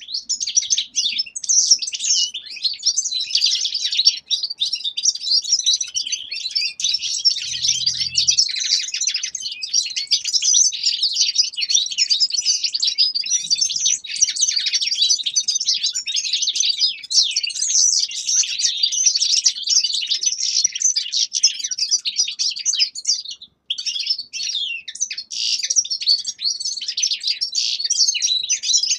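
Caged finches singing: a dense, continuous high twittering song with rapid changes of pitch, broken by one short pause late on.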